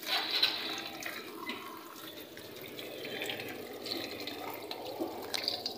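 Tap water running and splashing over hands as they rinse pieces of raw pork spare ribs in a plastic colander in a sink, strongest in the first half second.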